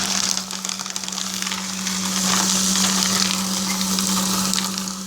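Electric paper shredder running with a steady motor hum while paper is fed through and cut, a dense crackling hiss that swells around the middle.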